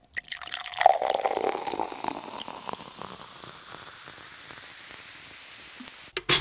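Intro sound effect: a crackling, sizzle-like hiss made of many small clicks, loud at first and fading to a steady faint hiss, then a short loud burst near the end.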